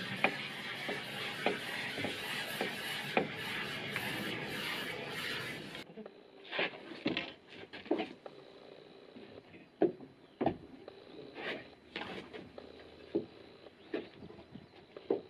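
Polyurethane foam gun spraying a steady hiss with small clicks, which cuts off about six seconds in. Then scattered knocks and scrapes as a long, thin concrete wall panel is lifted and handled.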